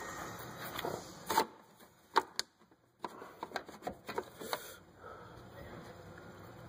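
Scattered light knocks, clicks and scraping as a 2005 Mercury Montego's alternator and the metal parts around it are handled and worked into a tight space by a gloved hand. The knocks are sharpest about a second and a half and two seconds in, with a cluster of lighter clicks around the four-second mark.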